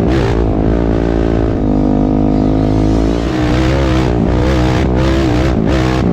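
Sport ATV engine running hard at high revs, its pitch rising and falling as the throttle is worked, with a brief dip in level a little past three seconds in.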